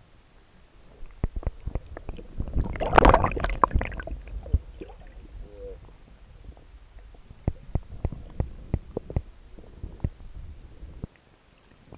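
Splashing and sharp knocks heard underwater as a bass hooked on a Hula Popper lure thrashes and is reeled in. A loud burst of splashing comes about three seconds in, and a run of knocks follows later.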